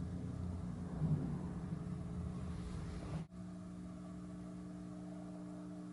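Car engine idling with a steady low hum, rougher in the first half, with an abrupt cut a little past halfway after which the hum runs smoothly.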